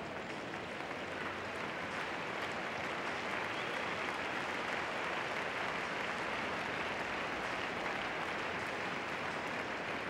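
Arena crowd applauding steadily, swelling a little over the first couple of seconds.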